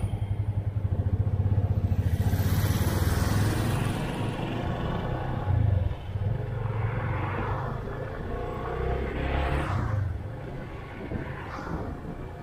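Motorcycle engine running as the bike pulls away and rides along the road, with a steady low pulse at first, then rising and falling as it goes.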